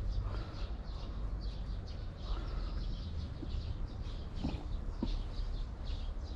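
Birds calling: many short, high chirps repeating throughout, with a couple of lower calls, over a steady low rumble.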